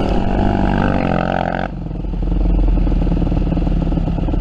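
Yamaha WR250F dirt bike's single-cylinder four-stroke engine running, its pitch wavering with the throttle, then dropping to a lower, steadier note about a second and a half in as the throttle is closed.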